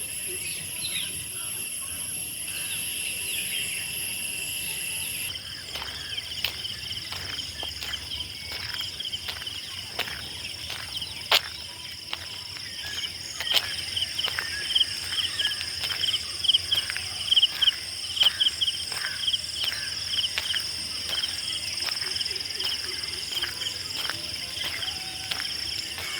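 Insects, crickets or cicadas, keeping up a steady high-pitched drone in several pitches; the highest drone drops out about five seconds in. Through the middle a quick run of short high chirps rises over the drone, among scattered sharp clicks.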